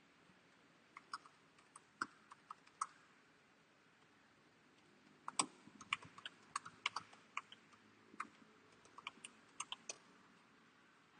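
Typing on a computer keyboard: a few scattered keystrokes about a second in, then a longer, irregular run of keystrokes from about five seconds in until near the end.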